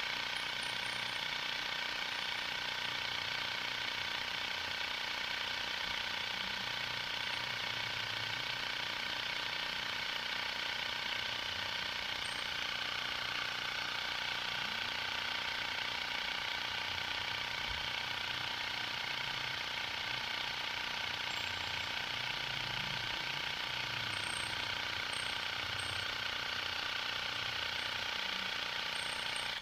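Portable tyre inflator's small motor-driven compressor running steadily, pumping up a repaired tubeless tyre. It stops suddenly at the end.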